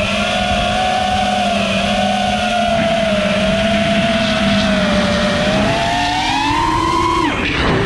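A 5-inch FPV quadcopter's motors and propellers whine steadily, the pitch wavering with throttle. About six seconds in the whine climbs, then near the end it falls sharply as the throttle is chopped.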